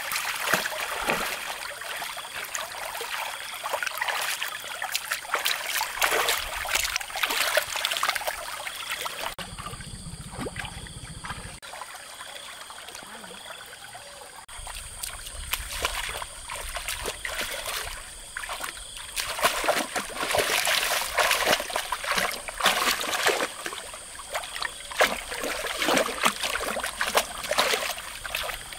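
Water splashing and trickling in many small, irregular splashes, quieter for a few seconds around the middle and busier again later on.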